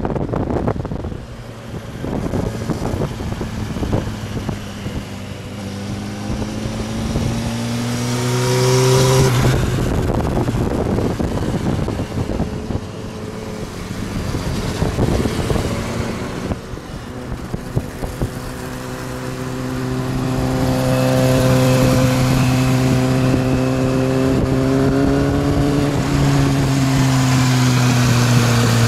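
Inline-four sportbike engines running while riding alongside, with wind noise on the microphone at the start. The engine note climbs in pitch and drops off about nine seconds in, then from about eighteen seconds holds a steady note that rises slightly and eases off near the end.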